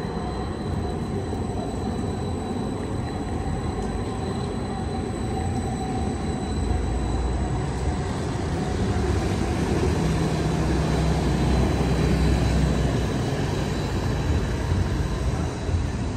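An Edinburgh Trams CAF Urbos 3 tram passing close by on its rails: a steady rumble with a faint, steady high whine over it, growing louder in the second half.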